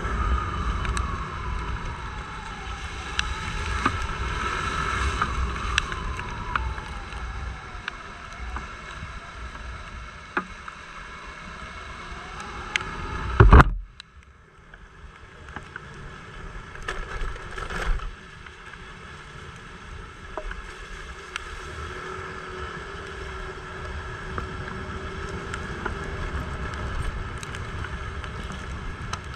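Motor scooter riding on a wet road: the engine's whine falls and rises with speed over a steady rush of wind and tyre noise. There is one loud thump about halfway, after which the sound is briefly quieter.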